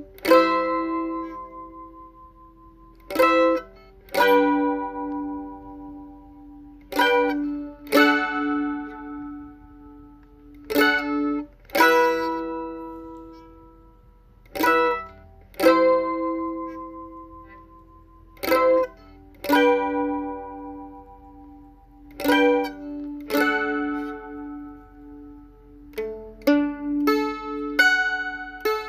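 Mandolin played slowly: plucked chords, mostly in pairs about a second apart, each left to ring out and fade, with a quicker run of plucks near the end.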